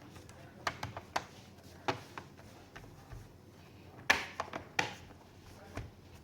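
Scattered small clicks and light knocks, about ten in all and the loudest about four seconds in, from handling the laptop's casing and parts during a CPU fan replacement.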